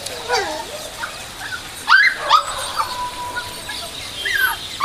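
Newborn puppies crying: a series of short, high-pitched whimpering squeals that bend up and down in pitch, the loudest about two seconds in.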